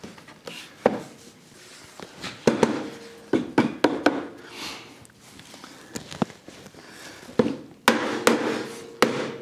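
Hammer taps seating an aluminium track into a snug friction-fit groove in a wooden sled fence: irregular knocks, some with a brief ring.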